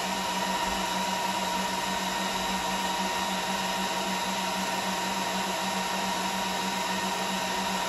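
Arista DCS-7124SX network switch's cooling fans running at high speed during boot: a steady whir with a low hum and a constant whine.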